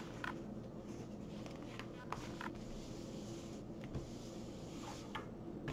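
Faint rustles and a few light taps of a diamond painting canvas being handled and turned over on a wooden table, over a steady low hum.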